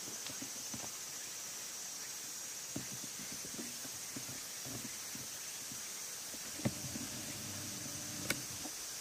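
Slow, irregular footsteps of someone walking, over a steady high-pitched drone, with two sharp clicks in the second half.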